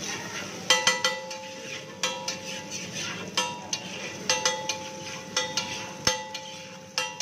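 A metal spatula chops and scrapes an egg mixture on a flat steel griddle: irregular ringing clinks, often in quick pairs or threes, starting a little under a second in. A steady sizzle runs underneath.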